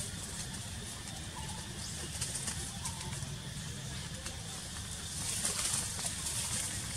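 Faint bird calls over a steady low rumble and a high hiss. About five seconds in, a louder rustle of leaves and twigs as a young macaque climbs into thin branches.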